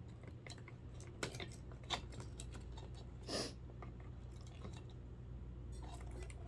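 Scattered small clicks and crunches of a plastic clock-radio case and circuit board being handled and pried apart, with one short scrape about three and a half seconds in, over a steady low hum.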